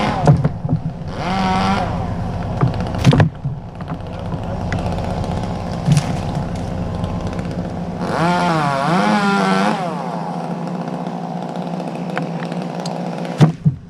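A chainsaw engine revving up and down in waves, twice, over a steady engine drone. A few sharp knocks stand out, one about three seconds in and one near the end.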